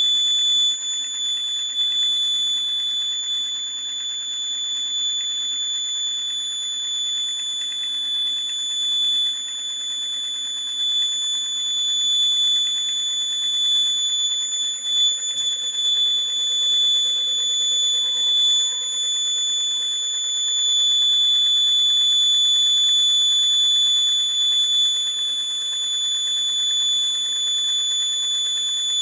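A steady, high-pitched tone that holds unbroken, with a faint low hum underneath.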